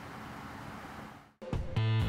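Steady traffic noise fades out about a second and a half in, and louder guitar music with heavy low bass notes begins.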